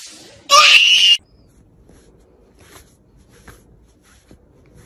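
A cat's short, loud cry lasting under a second, followed by faint soft rubbing and light ticks as a hand strokes a cat's fur.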